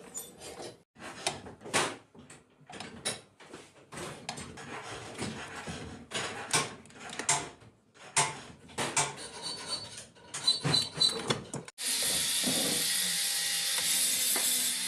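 Metal parts of a hand-crank sewing machine being handled and fitted: irregular clicks, knocks and scraping of steel parts and hand tools against the machine and the workbench. Near the end the sound changes abruptly to a steady hiss.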